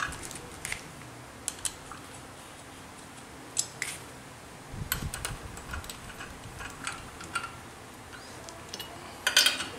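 Light metal clicks and clinks from a Honda brush cutter's steel blade head being assembled by hand: the cup-shaped blade holder and retaining nut going onto the gearbox shaft and a T-handle socket wrench set on the nut. A dull knock comes about halfway through, and a louder run of clinks near the end as the wrench goes to work.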